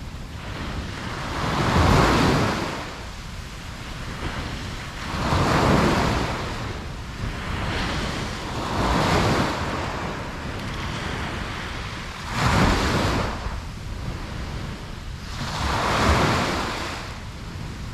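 Ocean waves breaking on a beach: a surge of surf washes in and fades about every three to four seconds, five times, over a steady low rumble.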